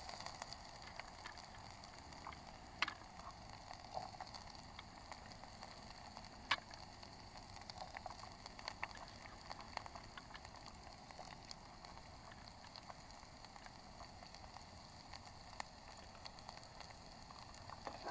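Ghee frying in a pan on a gas stove with mustard seeds, cumin and chillies in it: a faint steady sizzle with a few scattered sharp pops and ticks.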